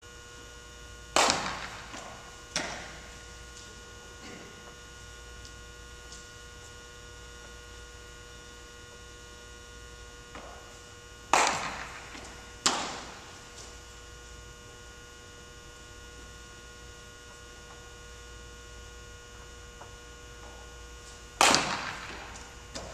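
Three sharp cracks of a baseball being struck, echoing in a large hall. Each is followed a little over a second later by a second smack as the ball is fielded in a glove. A steady electrical hum runs underneath.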